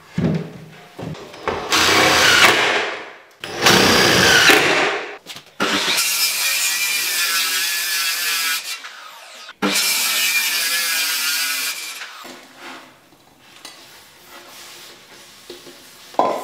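Power tool run in four bursts of a few seconds each, its motor whine wavering under load as it works cabinet board.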